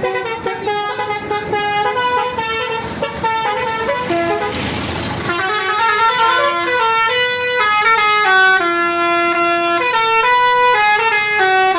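Basuri telolet musical horn on a new Metropolis bus playing a tune: a string of held horn notes that step from pitch to pitch every fraction of a second. There is a short hiss about four and a half seconds in.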